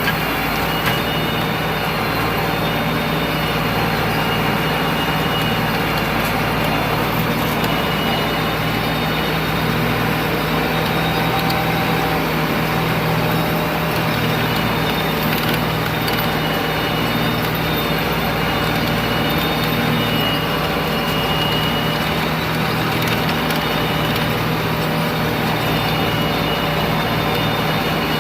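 Tractor engine running steadily while it drives a round baler through the PTO. With a plastic PTO guard fitted, the baler runs quietly and is barely heard behind the engine.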